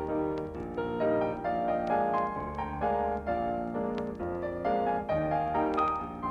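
Solo piano music: chords struck in a steady, brisk rhythm over bass notes.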